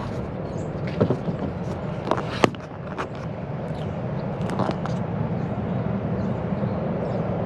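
Acura TL engine idling rough with a steady low drone, its cylinder 6 misfiring. A few sharp clicks sound over it in the first half.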